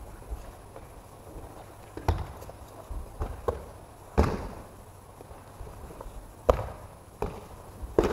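Thuds of bodies falling on tatami mats as aikido partners are thrown, several dull impacts a second or so apart, the loudest about six and a half seconds in, echoing in a large sports hall.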